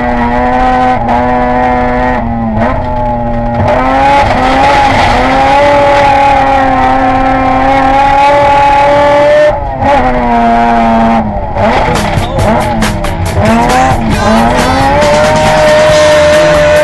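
Peripheral-ported rotary engine of a rally car at full throttle, heard onboard, its pitch dropping and climbing again at each of several gear changes. A rapid crackling runs over the last few seconds.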